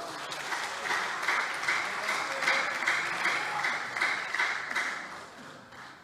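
Applause from lawmakers in a large assembly chamber as a floor speech ends, dying away near the end.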